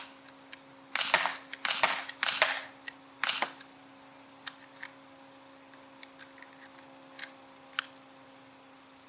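Gamo P-430 CO2 pellet pistol firing a quick string of about five sharp pops in the first three and a half seconds, followed by a few faint clicks.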